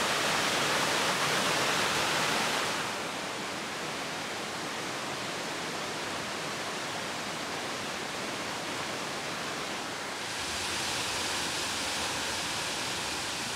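Waterfall and the cascading rocky stream below it: a loud, steady rush of falling water. It drops in level about three seconds in and swells again near the end.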